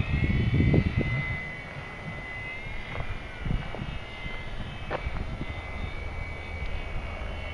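ParkZone P-47 electric RC warbird's motor and propeller whining steadily overhead, with a low rumble of wind on the microphone that is strongest in the first second.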